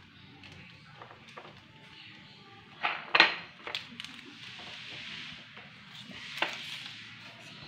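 A few sharp clicks or taps over low room noise, the loudest a quick pair about three seconds in and another single click later, with a soft hiss between them.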